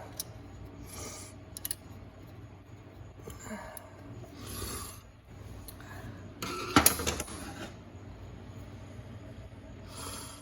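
Steel screwdriver tips scraping and clicking against a steel snap ring as it is worked into its groove over the low/reverse piston return spring of a 4L60E transmission, with one louder metallic clack about seven seconds in.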